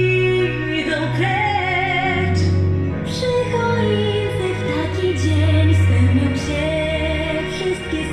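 A song playing: a woman singing a slow, held melody over backing music with sustained bass notes.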